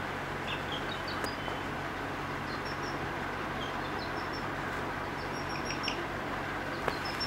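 Young chicken cheeping: short, high chirps scattered every second or so, over a steady background hiss and hum.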